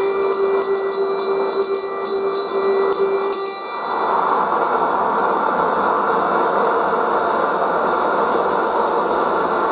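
Noise-based sound design from the dance piece's recorded electroacoustic score: a held tone that stops about three and a half seconds in, leaving a steady, loud rushing hiss.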